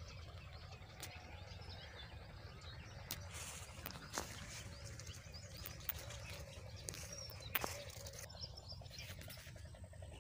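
Faint outdoor field ambience: birds chirping over a steady low rumble, with a few sharp clicks.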